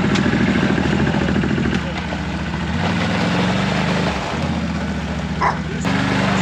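ATV engine idling with a steady low pulsing run, its pitch and level stepping abruptly a few times.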